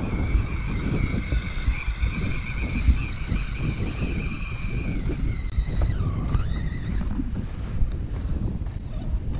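Electric motor of a Team Associated Pro2 short course RC truck whining as it drives through sand, the pitch rising and falling with the throttle and dipping and recovering about six seconds in, over wind on the microphone.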